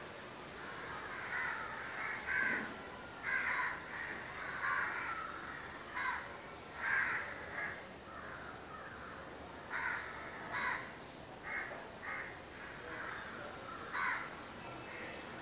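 Crows cawing: a dozen or so short, harsh caws at irregular intervals.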